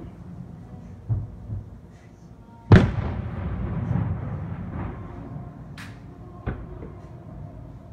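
Aerial firework shells bursting at a distance: two small thuds about a second in, a loud boom just before three seconds followed by a long rumble, then a sharp crack and one more boom near the end.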